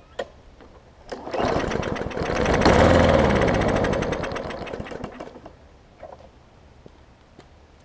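Briggs and Stratton 500E series overhead-valve push-mower engine pull-started on starter fluid: it catches about a second in, runs briefly, then slows and stalls. Starting on starter fluid but not staying running means the engine is not getting fuel from its own carburettor, likely old gas clogging the main jet.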